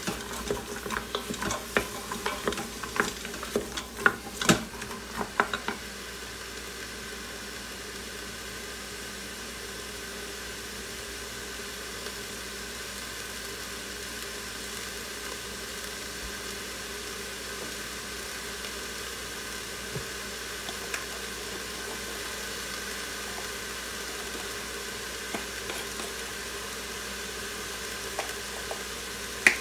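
Chopped onion, carrot, celery and garlic sizzling in the stainless steel inner pot of an Instant Pot on the sauté setting. For about the first six seconds a utensil knocks and scrapes against the pot as the vegetables are stirred, then a steady sizzle.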